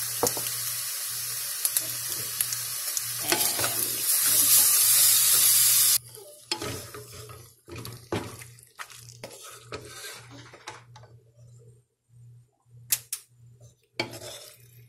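Pasta and sauce sizzling steadily in a hot pot, getting louder about four seconds in and cutting off suddenly about six seconds in. Then a wooden spatula stirring the pasta, scraping and knocking against the pot in short, irregular strokes.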